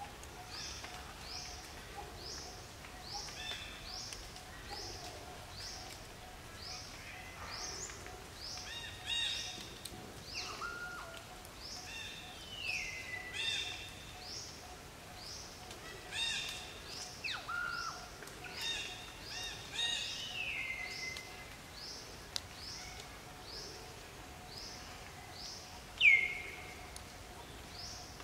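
Forest birdsong: a short rising chirp repeated about twice a second, with louder calls scattered between, some sliding down in pitch. The loudest is a sharp falling call near the end.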